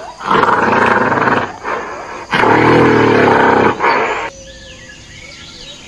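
Toy gorilla's built-in roar sound effect played twice, two loud roars of about a second and a half each, the second lower and fuller.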